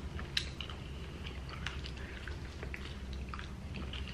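Close-miked eating sounds: people biting and chewing celery sticks and sauced chicken wings, with scattered small wet clicks and crunches over a low steady hum.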